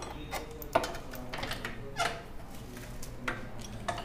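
A spanner and the Bajaj Pulsar 220F's oil cooler being handled as the cooler is unbolted and lifted off, giving a few scattered sharp clicks and knocks, the loudest about three-quarters of a second in.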